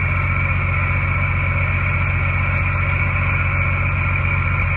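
CB radio speaker putting out a steady hiss of static, with a low steady hum underneath.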